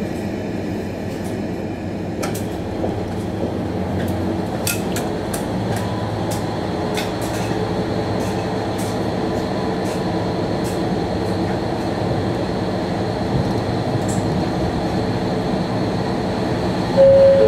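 KiHa 40 diesel railcar pulling away from a station, heard from inside the car: its diesel engine runs steadily and grows slowly louder as the train gathers speed, with scattered clicks and clinks from the wheels and car body. Near the end a falling two-note chime sounds from the onboard announcement system.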